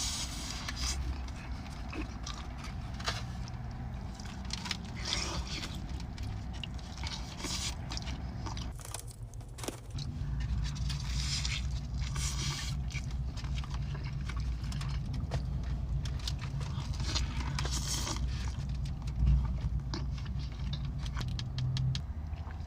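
Close-up eating sounds of birria tacos: crisp fried tortilla crunching and wet chewing, in short irregular crunches over a steady low hum, which changes about nine to ten seconds in.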